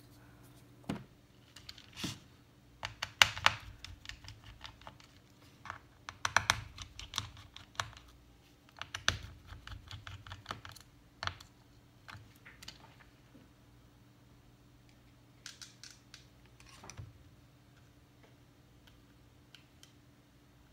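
Irregular small clicks and taps of hand tools and small parts on an opened MacBook Pro during disassembly, coming in clusters for the first dozen seconds and sparser after, over a faint steady hum.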